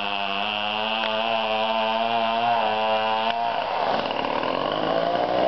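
Chainsaw running at a steady pitch, then changing about three and a half seconds in to a rougher sound whose pitch rises.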